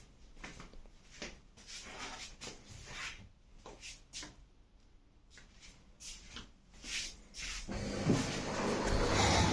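Scattered light clicks and knocks, then, about eight seconds in, the Electrolux EW1077F washing machine starts up with a steady hum and hiss that grows louder.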